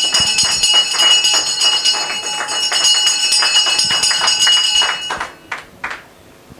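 Digital bell sound effect over the loudspeakers: a high, steady ringing with fast repeated strikes, like an electric trading bell, that cuts off about five seconds in.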